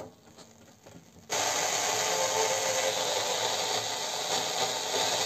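A click, then about a second in a VEF-214 transistor radio's loudspeaker comes on with loud, steady static hiss and no station tuned in; the set is missing its antenna.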